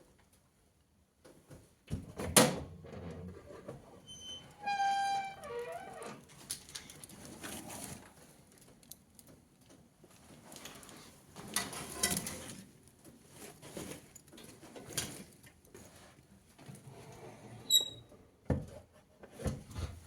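Fire in a fireplace crackling and popping irregularly as a synthetic faux-leather jacket burns, with a loud pop about two seconds in and a burst of crackling around the middle. About five seconds in a short whistling tone sounds and falls slightly in pitch.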